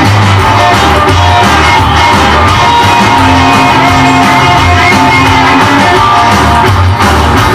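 Rockabilly record playing loud: electric guitar over a bass line that steps from note to note.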